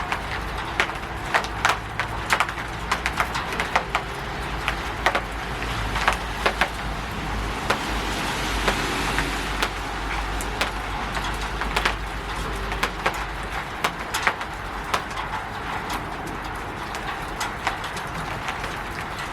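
Rain falling on a roof: a steady patter broken by many sharp, irregular drop knocks, swelling briefly around the middle. A low rumble underneath stops about two thirds of the way through.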